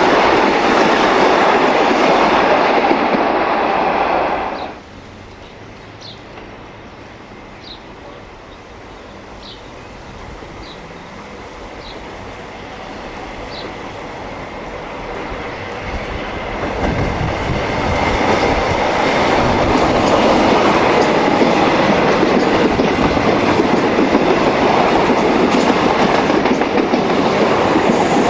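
Train carriages running past on the rails, their noise cutting off sharply about five seconds in. A few faint high chirps follow. Then a Comeng electric suburban train approaches, growing louder, and runs past for the rest.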